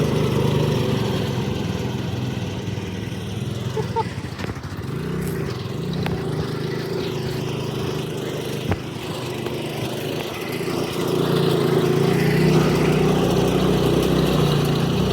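Predator-swapped riding lawnmower engine running under throttle, its speed dipping about four seconds in and rising and growing louder again near the end, with one sharp knock partway through.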